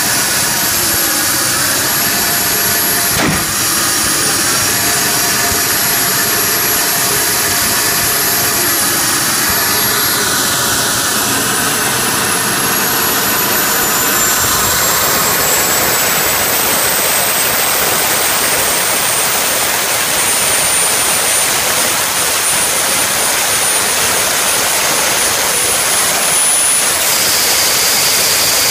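Small gas-turbine jet engine of a jet-powered kart running loudly and steadily, with a high turbine whine over the exhaust noise. The whine rises in pitch a little past halfway through.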